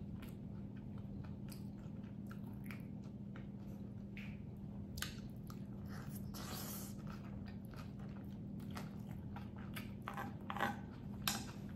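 Close-miked chewing and wet mouth sounds of a person eating spoonfuls of rice and taquitos, with many small clicks and a louder crunch about six seconds in, over a steady low hum.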